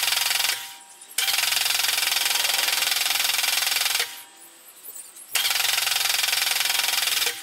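Starter motor cranking the Astra's Z20LET 2.0 turbo four-cylinder in repeated runs of two to three seconds with short pauses between, the engine not firing because the fuel pump relay is pulled: cranking to prime the newly fitted turbocharger with oil.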